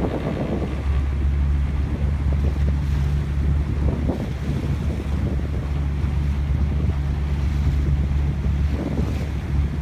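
Wind buffeting the microphone and water splashing and rushing past a moving boat on choppy water, over a steady low drone.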